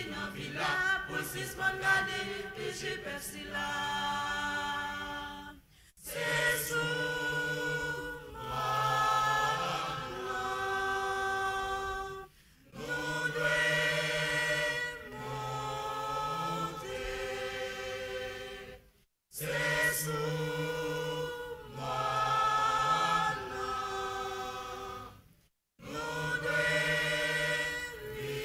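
Mixed church choir singing a hymn a cappella in harmony, long held chords in phrases broken by short pauses about every six seconds.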